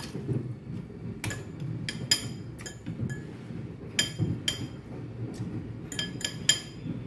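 A metal spoon and fork clinking against a bowl while scooping rice. There are about a dozen irregular sharp clinks, bunched around four seconds in and again near the end.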